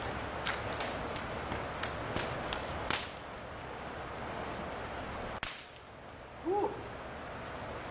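Fly rod being whipped hard through the air: a quick run of sharp swishes, several a second, that stops about three seconds in, then one more sharp swish a couple of seconds later.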